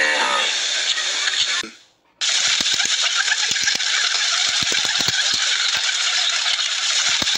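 Flock of feral pigeons feeding on grass: scattered sharp taps and clicks over a steady hiss, after a brief drop-out about two seconds in.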